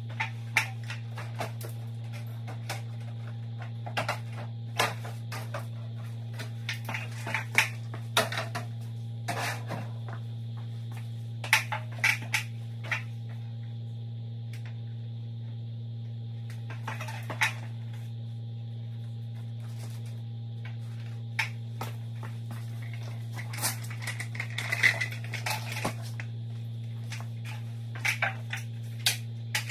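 Irregular plastic clicks, knocks and rattles as the casing and parts of a mini-split indoor unit are handled and taken apart, in scattered clusters with short pauses between. A steady low hum runs underneath.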